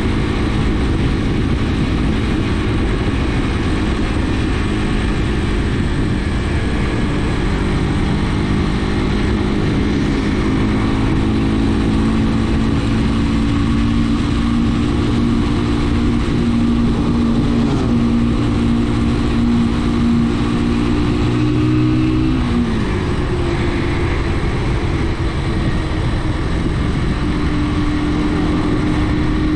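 Brixton BX5 motorcycle engine running under way, with heavy wind and road noise over it. The engine note climbs slowly, falls sharply about three-quarters of the way through, then rises again near the end.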